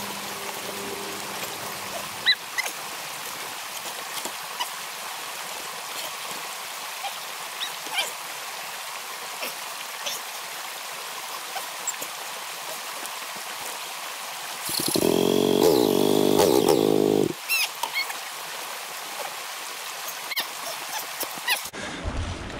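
Creek water running steadily over rocks, with scattered small knocks and clicks. About fifteen seconds in, a loud pitched sound lasts about two and a half seconds and then cuts off.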